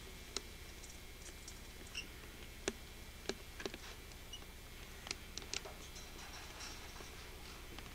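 Scattered light clicks and taps, about a dozen, irregularly spaced over a low steady hum, the sharpest about a third of the way in.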